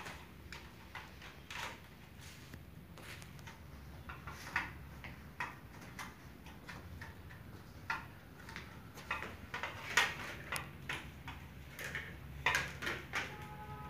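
Irregular light clicks and knocks of parts of a Daikin ceiling cassette air conditioner's indoor unit being handled during servicing, over a low steady hum.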